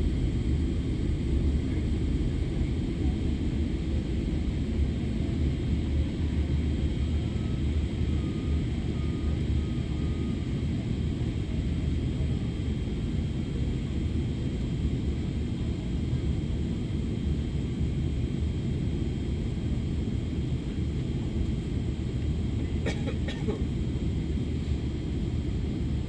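Airliner cabin noise during a landing approach: a steady low rumble of the engines and rushing air, with a faint steady whine above it. A couple of brief clicks near the end.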